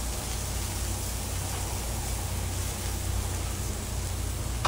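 Zucchini, onions and meat sizzling steadily on a hot Blackstone flat-top griddle. A short metal spatula clack near the end.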